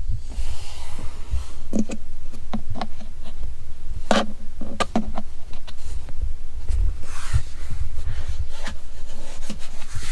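Low, steady rumble inside the cabin of a Ford Maverick on the move, with a scatter of short sharp knocks and rattles, mostly in the first half, and brief hissing twice.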